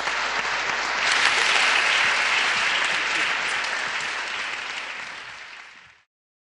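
Audience applauding, loudest about a second in, then fading away and cutting off abruptly near the end.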